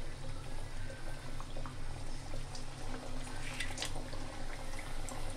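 Aloo kachori frying in oil in a kadhai over a low flame: the oil bubbles and sizzles gently around the dough, with scattered small crackles over a steady low hum.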